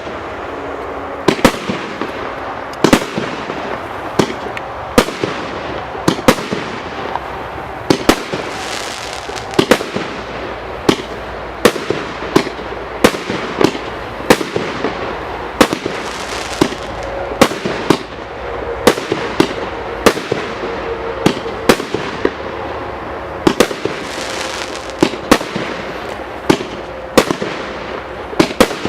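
Consumer fireworks cake (multi-shot battery) firing: sharp bangs about one to two a second over a steady crackling hiss, with a faint whistle partway through.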